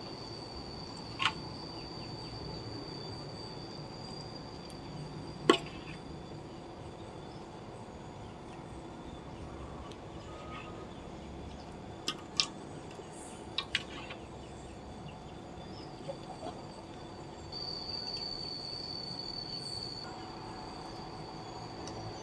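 A few sharp clinks of a spoon against a metal wok as spicy paste is spooned over grilled chicken. A steady high-pitched insect drone runs underneath and grows louder near the end.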